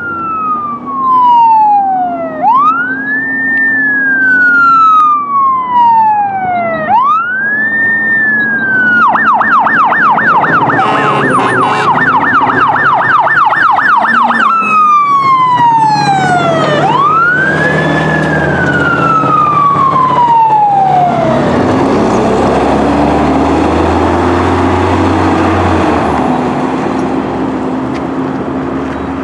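Fire engine siren in a slow wail, sweeping down and up about every four and a half seconds. It switches to a fast yelp for about five seconds, then returns to the wail and cuts off about 21 seconds in. After that the fire engine's engine rumbles as it drives past.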